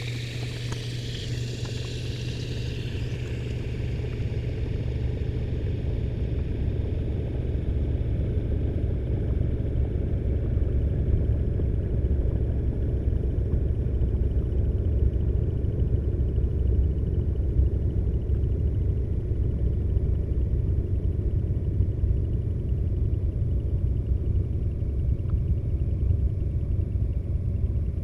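Washing machine running, heard from inside a waterproof camera housing in the drum. A water hiss fades out over the first few seconds. A steady low rumble then grows louder over the first ten seconds or so and holds.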